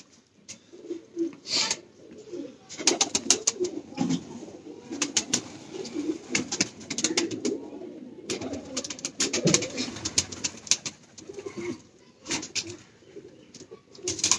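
Domestic pigeons cooing steadily, with many sharp clicks and rustles mixed in.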